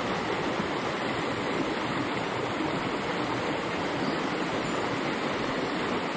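Shallow, rocky creek flowing fast over a riffle: a steady, even rush of moving water.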